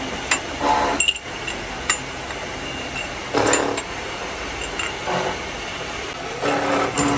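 Metal rods clinking as they are handled and set into holes in a steel rotary table: several sharp clicks and a few short louder clatters, over steady factory machine noise.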